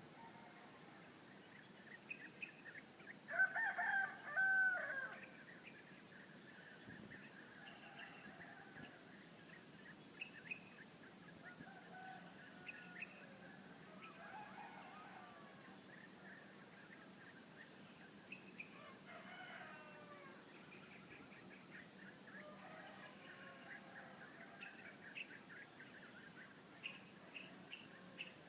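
A rooster crows once, loudly, about three seconds in. Fainter crowing and short bird chirps follow through the rest, over a steady high hiss.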